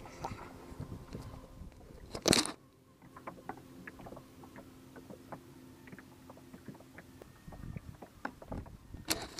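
Close handling noise in a canoe: one loud, short rustling bump about two seconds in as the camera is knocked against fabric, then scattered small clicks and knocks.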